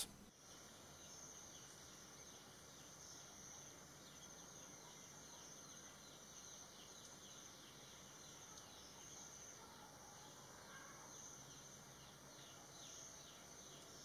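Near silence outdoors, with faint, steady, high-pitched insect chirring.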